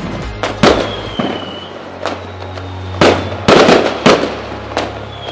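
Fireworks going off: a run of sharp bangs, loudest about three and a half seconds in, with a thin whistle falling slightly in pitch about a second in.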